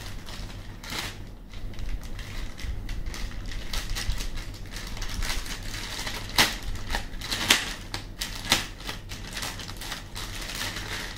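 Clear plastic bag crinkling and crackling as hands handle it and open it to take out a mop pad: irregular crackles, with a few sharper, louder ones about six and a half, seven and a half and eight and a half seconds in.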